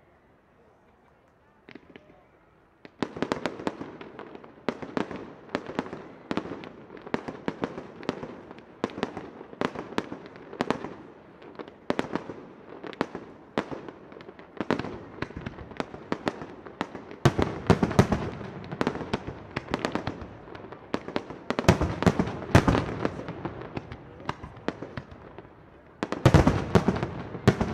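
Display fireworks bursting in a rapid series of sharp bangs, several a second, starting about three seconds in, with heavier volleys near the middle and near the end.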